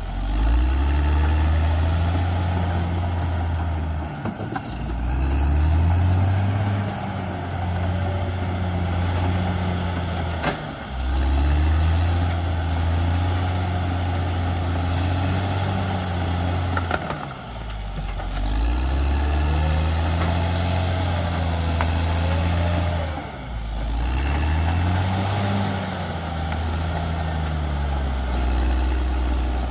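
CAT D6R XL bulldozer's diesel engine running under work. The revs dip and climb back up about every six seconds.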